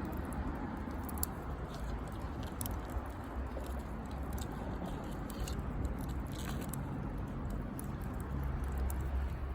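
Wood campfire crackling, with scattered small pops and snaps over a steady low rumble.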